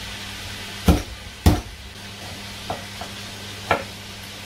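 Chef's knife coming down on a wooden cutting board as garlic cloves are chopped: four sharp knocks at uneven intervals, the first two loudest. Under them runs the steady sizzle of chicken pieces frying in a pan.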